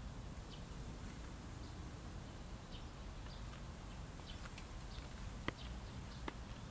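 Faint outdoor ambience: small birds chirping now and then over a low steady rumble, with two sharp clicks late on.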